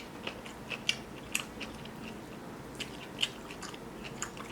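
Close-miked chewing of a mouthful of rice, sausage and cucumber: irregular wet mouth clicks and smacks, with the sharpest ones about a second in and again near three seconds.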